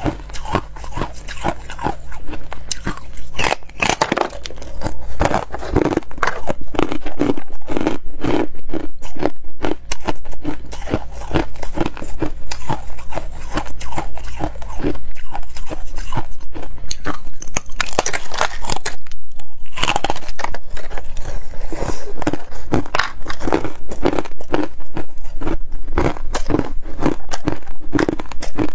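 Frost-covered ice slabs being bitten and chewed: a dense, steady run of sharp crunches and crackles. It gets louder about two seconds in and briefly pauses about two-thirds of the way through.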